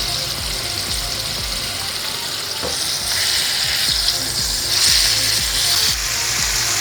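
King fish pieces shallow-frying in oil on a flat tawa, sizzling steadily; the sizzle grows louder about three seconds in and is loudest a couple of seconds later.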